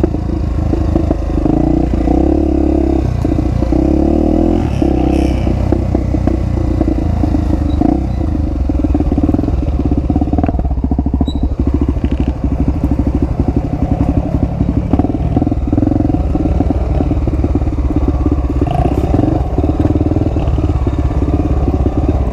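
Honda XR250 Tornado's single-cylinder four-stroke engine running through an aftermarket Power Core 2 exhaust, its engine speed rising and falling as the bike rides over rough dirt trail.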